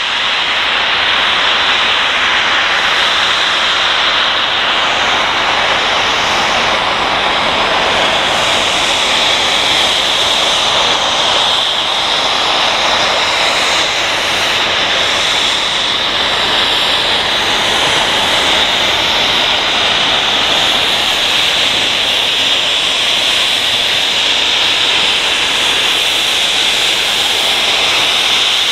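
Steam locomotive's safety valves blowing off: a loud, steady hiss of escaping steam that does not let up.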